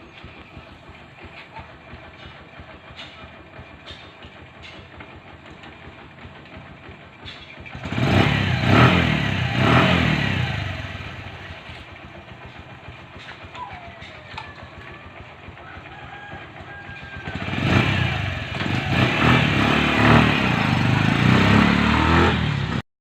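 Bajaj CT100 motorcycle's single-cylinder four-stroke engine, freshly overhauled, running at a low idle and then revved up twice, about eight seconds in and again from about seventeen seconds, each time rising and falling in pitch.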